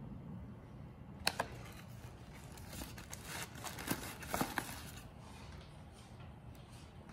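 Paperboard takeout box being handled: two quick clicks about a second in, then a stretch of crinkling and scraping as the box of fries is gripped and moved.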